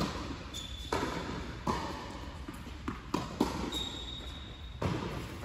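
Tennis rally on an indoor hard court: about seven sharp knocks of racket strings hitting the ball and the ball bouncing on the court, each echoing in the large hall.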